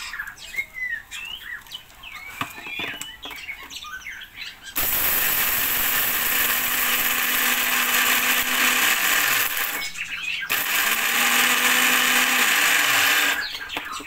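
Electric mixer-grinder with a stainless steel jar grinding dog food in two runs, about five seconds and then about three seconds, its motor hum falling in pitch as it winds down after each. Before it starts, caged birds chirp and there is some clatter of the jar being handled.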